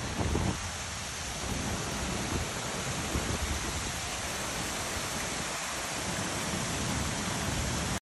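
Steady rushing noise, with wind buffeting the microphone in the first half second.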